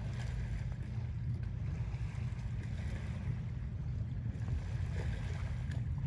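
Steady low rumble at the water's edge, with a faint hiss of rippling water and a few small clicks.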